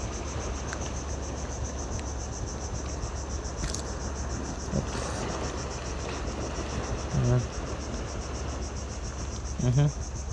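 Insects chirping steadily in a high, finely pulsing band over a low steady rumble, with a few short murmured voice sounds from a person about midway and near the end.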